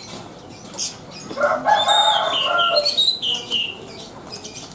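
Anis (Indonesian thrush) singing in full voice: a short call, then a loud phrase about a second and a half in, with a rasping lower part followed by a run of high whistled notes.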